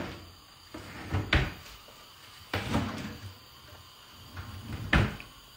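A few knocks and bumps of cupboard doors being opened and shut. The sharpest and loudest comes about five seconds in.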